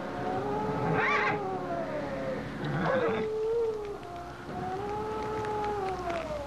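A wild animal howling in the night: a few long drawn-out howls, each rising and then falling in pitch over about two seconds, one after another. Two short, harsher cries break in, about a second in and again near three seconds.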